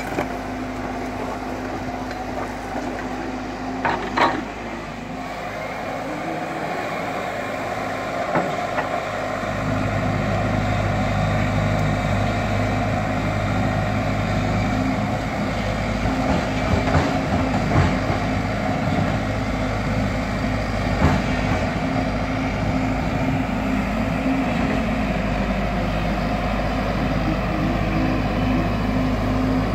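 Excavator's diesel engine running steadily, getting louder about ten seconds in, with a few sharp knocks from the machine working.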